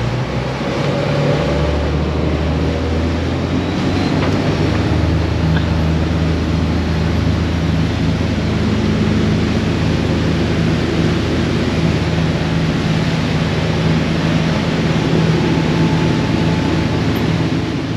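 Twin engines of a Broom 41 motor cruiser opening up, picking up revs in the first second or two, then running steadily at speed, over a steady rush of water and wind.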